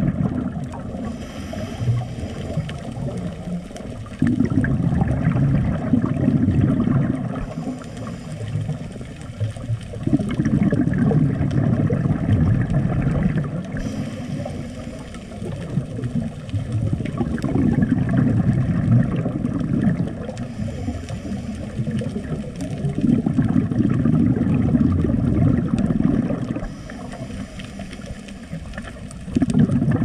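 Scuba diver breathing through a regulator, heard underwater: a short hissing inhale followed by a longer low rumble of exhaled bubbles, repeating about every six seconds.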